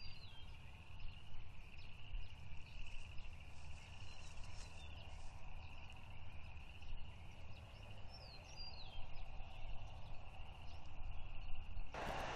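Outdoor ambience: a steady high-pitched trilling chorus, with a few brief chirps from small birds and a low rumble underneath. A loud rush of noise starts just before the end.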